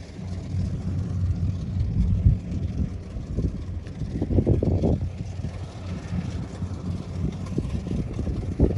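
Engine of a small tracked rice combine harvester running steadily as it cuts through the paddy, heard as a low, even rumble. Uneven gusts of wind buffet the microphone over it, strongest about four seconds in.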